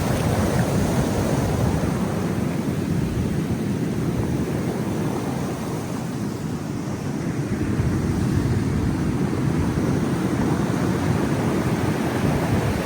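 Large ocean waves crashing on the shore in a continuous rush of surf, easing a little midway and building again, with wind buffeting the microphone.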